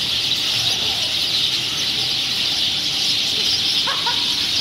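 A steady, high-pitched cicada chorus buzzing without a break, with a few short rising calls near the end.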